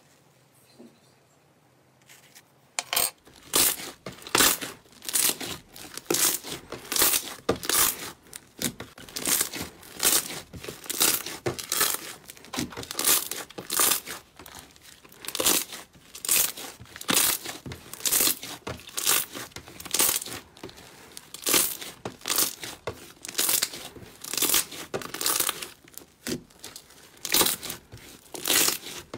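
Slime being pressed and squeezed by hand: a rhythmic run of short crackly squelches, roughly one a second, starting about three seconds in.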